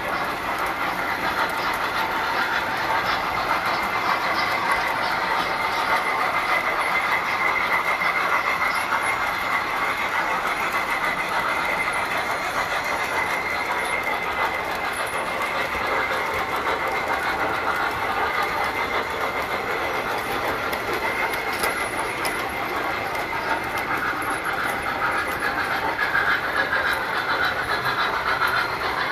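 Tinplate model trains running on metal track: a steady rattle of metal wheels on the rails, with a constant high whine over it.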